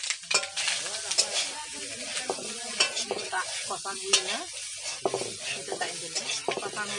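A metal spatula stirs and scrapes pieces of kuchia swamp eel frying in a metal kadai, with repeated clinks against the pan over steady sizzling.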